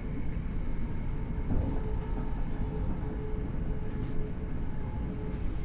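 Passenger train running at speed, heard from inside the carriage: a steady low rumble from the wheels on the track with a faint steady whine through it. A brief hiss comes about four seconds in.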